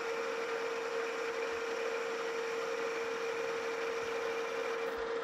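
Metal lathe running steadily with a constant hum while a boring bar takes a spring pass through the bore of a gear blank: a light finishing pass at the same dial setting, taking out what the bar's flex left behind.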